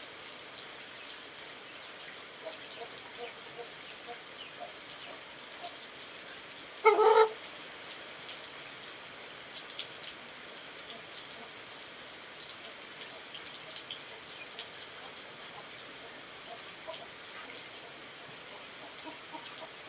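Steady rain falling, with chickens clucking softly now and then and one loud, short squawk about seven seconds in.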